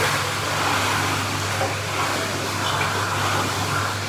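Pool water churning with a steady low hum from the pool's pump or jets.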